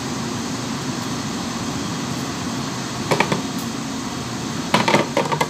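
A steady machine hum, like air conditioning or a fan, with short clatters about three seconds in and again near the end.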